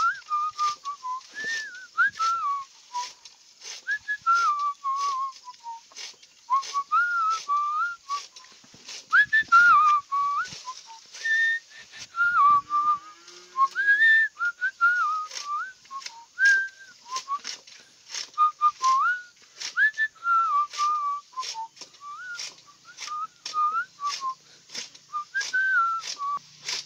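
Someone whistling a wandering tune over regular sharp chopping strokes, about two a second, from a simple hand-worked cutter slicing leafy greens.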